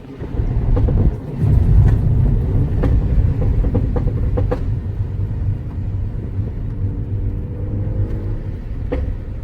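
Mini Cooper's engine and exhaust under throttle: a heavy low rumble broken by sharp exhaust pops and crackles in the first half and once near the end. The engine note rises steadily over the last couple of seconds as the car accelerates.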